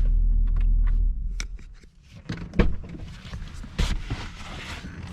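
A steady low rumble that drops away about a second in, followed by scattered thunks and clicks inside a car, the two loudest about two and a half and four seconds in, over a faint rustling.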